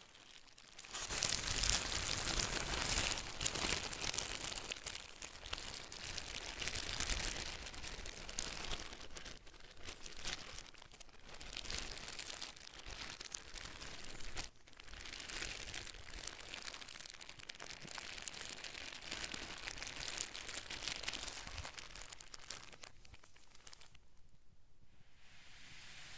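Packaging being crumpled and handled, a dense crinkling and crackling that starts about a second in, pauses briefly midway and eases off near the end.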